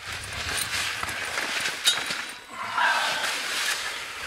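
Rustling and handling noises of camouflage clothing and gear as a hunter shifts about inside a fabric ground blind, with a sharp click about two seconds in.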